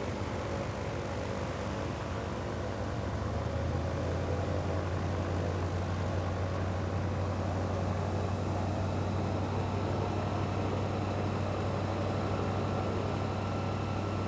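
Airboat's engine and large air propeller running steadily under way, a deep, steady drone that grows a little fuller about three and a half seconds in.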